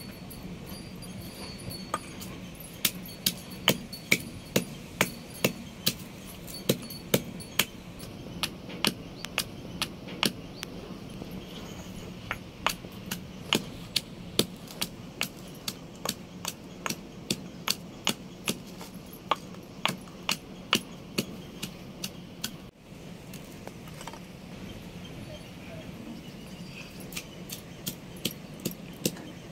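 Stone pestle pounding garlic in a stone mortar: sharp, regular knocks about two a second, starting about three seconds in, with a short pause a few seconds before the end.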